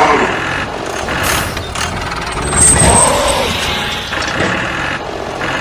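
Steady, loud machine running noise, with a wavering tone that rises and falls about three seconds in.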